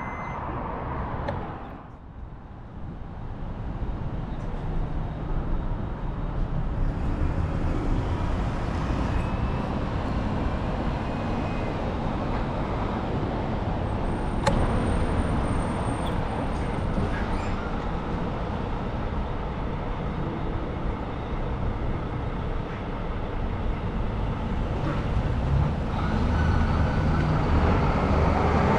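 City street traffic noise: cars and trucks going by in a steady rumble, with a sharp click and a brief thin high tone about halfway through.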